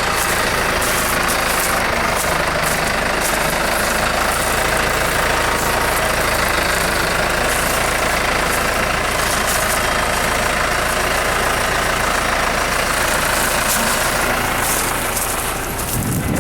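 A machine running steadily, a loud even drone with a hiss on top, easing slightly near the end.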